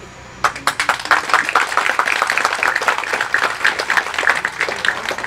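Audience applauding: a dense patter of many hands clapping that starts suddenly about half a second in and carries on throughout.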